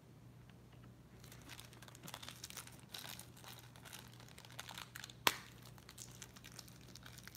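Faint crinkling and tearing of a blind-box pin's packaging as it is unwrapped by hand, with one sharp click a little over five seconds in.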